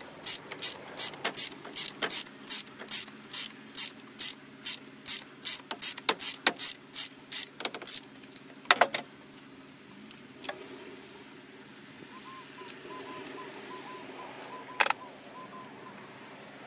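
Ratchet wrench clicking at about three clicks a second as it is swung back and forth to turn a spark plug. The clicking stops about eight seconds in, followed by a few single clicks.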